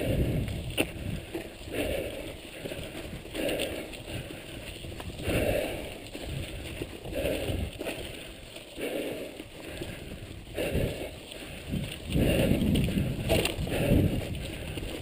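Mountain bike rolling over a rough, stony dirt trail: tyres crunching on loose gravel, with rattling that swells and fades every second or so and a few sharp knocks over bumps.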